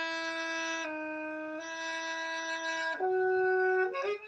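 Saxophone, heard over a video call, playing a few long held notes as a fingering exercise on F with the right-hand ring finger. The pitch dips slightly just under a second in, comes back, steps up about three seconds in and changes again near the end.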